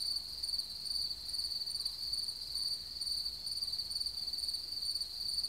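Chorus of night insects trilling: a steady, high-pitched, finely pulsing trill with a fainter overtone above it, unbroken throughout.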